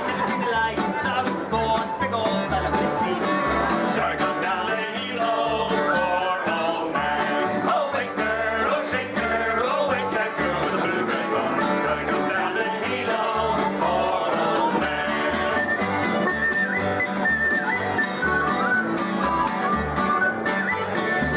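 Upbeat country-bluegrass background music with plucked guitar and banjo over a steady beat.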